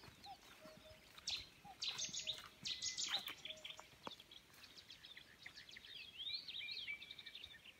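Several birds calling and chirping, a busy mix of short high calls and quick rising and falling notes, with a few short lower notes now and then.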